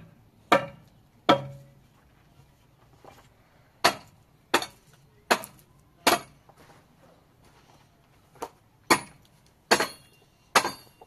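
Sledgehammer striking stone and concrete rubble: about ten sharp blows in uneven groups with short pauses between, a few of them ringing briefly.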